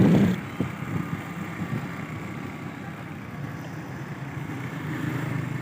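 A vehicle engine running steadily amid street traffic, after a louder rush of noise that drops away under half a second in.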